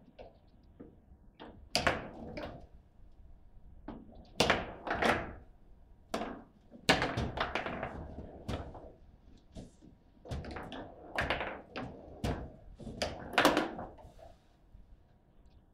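Table football play: a string of irregular sharp knocks and clacks as the ball is struck by the figures and the rods are worked, in bunches with short quieter gaps between.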